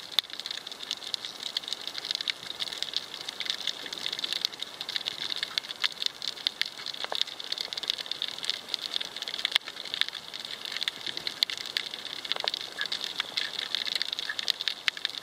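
Underwater coral-reef crackle: a dense, steady bed of tiny clicks from snapping shrimp, heard underwater.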